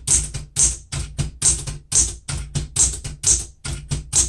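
1970 Smith-Corona Super Sterling manual typewriter being typed on at a steady pace: sharp typebar strikes on the platen, about three keystrokes a second, with lighter mechanical clicks between them.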